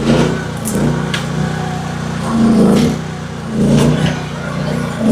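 AGT H12 mini excavator's engine running, its note swelling and easing several times as the hydraulics are worked under load, with a few short metallic knocks.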